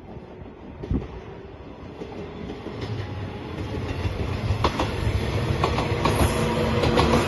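A train approaching, growing steadily louder, with its wheels clicking over the rail joints more and more from about three seconds in.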